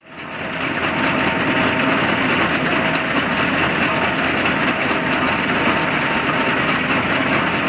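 Fowler steam ploughing engine at work: a dense, steady mechanical clatter that fades in over the first half second.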